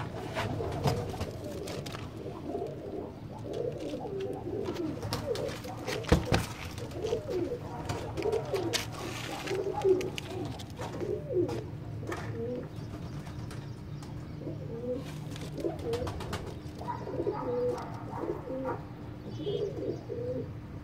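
Domestic pigeons cooing over and over, several calls overlapping, with scattered clicks and one sharp knock about six seconds in.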